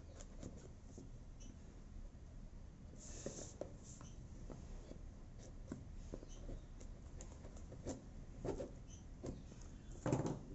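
Cardboard earbud box being handled and opened by hand: fingernails scratching and picking at its edges and seal sticker, with small taps and rustles. A brief scrape about three seconds in and a louder burst of handling noise near the end as the box is worked open.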